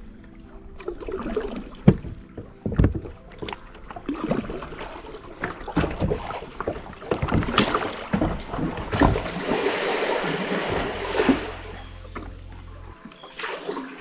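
Kayak on the water: irregular knocks of a paddle and gear against the hull, with a stretch of splashing water about two-thirds of the way through.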